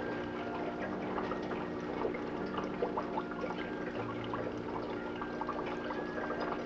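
Aquarium water bubbling and trickling, many small irregular bubble pops and drips over a steady low hum.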